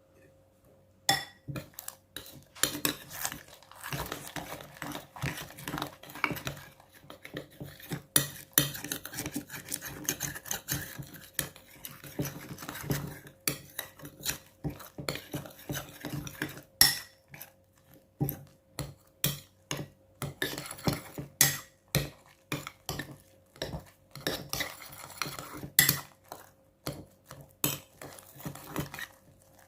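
A utensil stirring in a mixing bowl, mixing clear glue with borax activator into slime. It gives irregular clinks and taps against the bowl, a few a second, with scraping and stirring in between. It starts about a second in.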